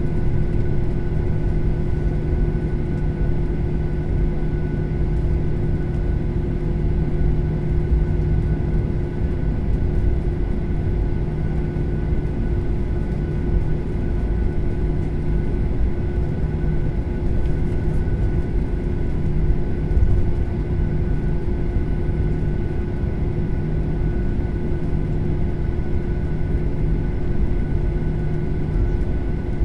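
Airliner cabin noise while taxiing: a steady low rumble with a steady engine whine of several held tones from the plane's engines at low power.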